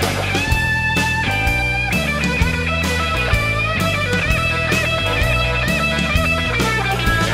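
Blues band recording, instrumental passage: a lead electric guitar plays bending notes over bass and drum kit.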